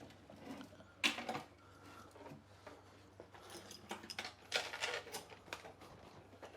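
Metal clinks and rattles of hand tools and motorcycle parts being handled: one sharp clink about a second in, then a short run of clinks and rattles around four to five seconds.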